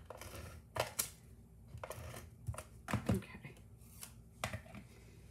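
Soft rustles and a few short clicks of cardstock, paper strips and a plastic tape runner being handled on a craft mat.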